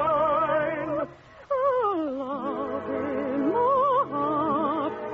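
A voice singing in operetta style with the orchestra, with wide vibrato. It holds a long high note, breaks off for a moment about a second in, then slides down and carries on in lower notes.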